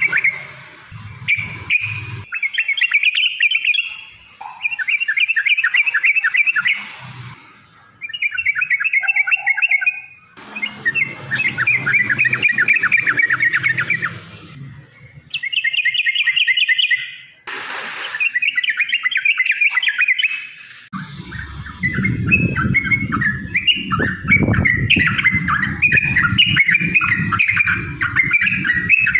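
Yellow-vented bulbul (trucukan) song: repeated phrases of fast, rolling chattering notes, each lasting a second or few with short breaks. In the last third the phrases run together almost without pause, over a low rumble.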